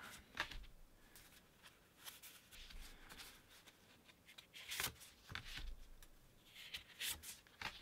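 Stiff art cards being flipped through and handled: faint rustles and slides of card stock, with a few sharper flicks.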